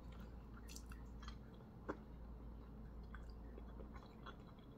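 A person chewing food quietly, with a few faint small clicks.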